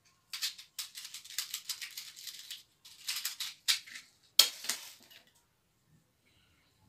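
Close handling noise from small objects in the hands: bursts of crinkly rustling and rattling, with one sharp click about four and a half seconds in, then it stops.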